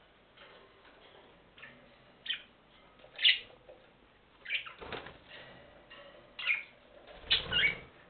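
Budgerigars giving short, sharp chirps several times, with two louder rustling bursts about five seconds in and near the end.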